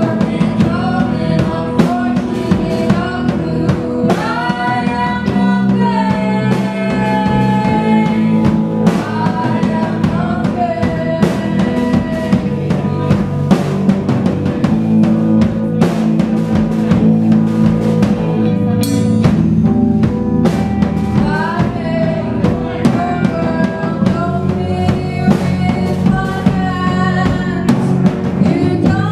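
Live band playing: a male lead singer sings over electric guitar, bass guitar and a drum kit.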